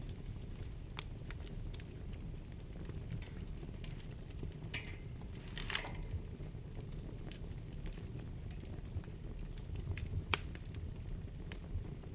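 Wood fire burning in a fireplace: a steady low rumble of flames with scattered sharp crackles and pops, and a brief hissing flurry of crackles about halfway through.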